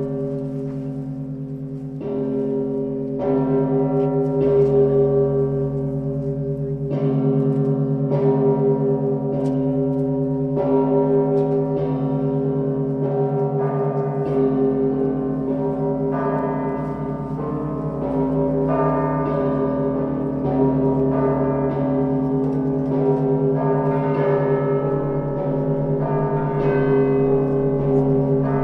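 Russian Orthodox church bells rung together in a festal peal for the Annunciation: deep, steady ringing from the big bells carries throughout while smaller bells are struck over it in a quick, uneven pattern.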